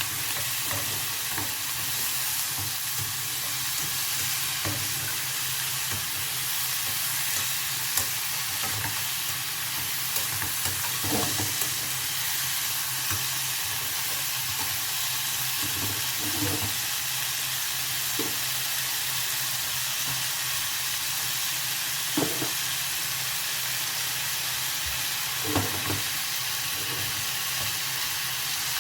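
Vegetables frying in a pan with a steady sizzle, and a few short knocks of a utensil against the pan as they are stirred.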